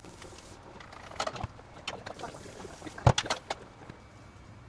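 One-handed bar clamps being squeezed tight and set against wood: a run of sharp plastic clicks and knocks, with the loudest knock about three seconds in.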